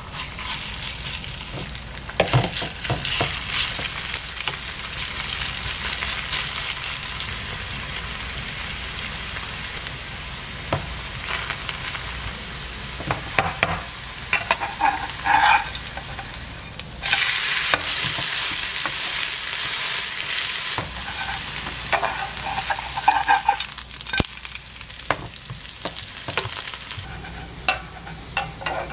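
Shredded potato and carrot pancake (gamjajeon) batter sizzling in hot oil in a nonstick frying pan, with scattered scrapes and taps of a spatula spreading and pressing it. The sizzle gets louder for a few seconds past the middle.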